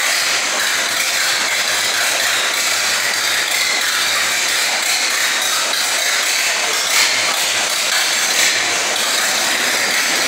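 1932 Ford AA truck's four-cylinder engine running steadily on its first start, a loud, dense mechanical clatter with no change in speed.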